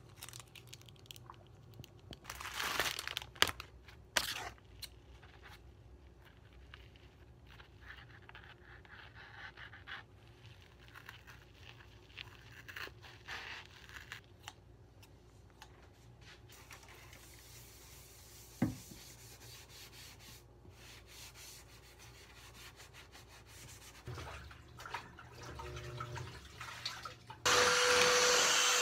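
Quiet handling sounds, rubbing and crunching, as kitchen scissors cut a dish sponge, with a few louder short noises in the first few seconds. Near the end a stick vacuum cleaner switches on abruptly and runs loud and steady, with one steady tone over its rushing air.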